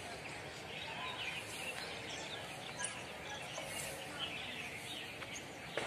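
Many small birds chirping in short, scattered calls over a steady background hum of outdoor noise.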